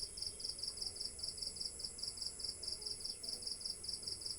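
Insects chirping steadily in a fast, even, high-pitched pulse of about five chirps a second, over a continuous high hum.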